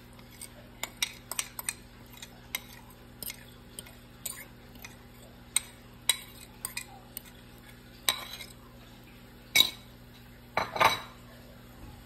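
A fork clinking and scraping against a mixing bowl as pancake batter is poured out of it into a frying pan. It gives a string of irregular sharp clicks, with louder, longer scrapes near the end.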